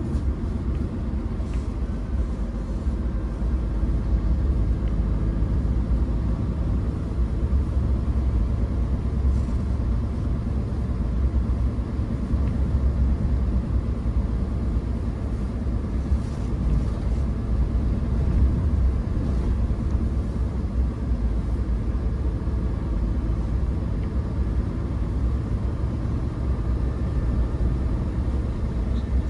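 Scania P410 truck's six-cylinder diesel engine and its tyres on snow, heard from inside the cab while driving at a steady pace: a continuous low rumble.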